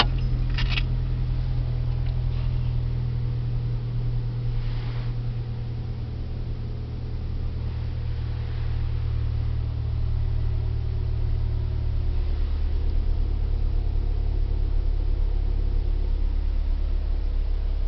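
Mazdaspeed 3's turbocharged 2.3-litre four-cylinder idling steadily, heard from inside the cabin as a low hum. There is a brief click under a second in.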